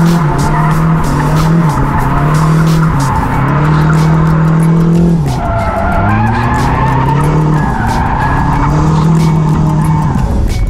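Turbocharged SR20DET four-cylinder of a Nissan 240SX (S14) under hard throttle while drifting, heard from inside the cabin: the revs hold high for a second or so, dip, and climb again over and over, with a deeper dip about halfway through. Tyres sliding and squealing on wet asphalt run underneath.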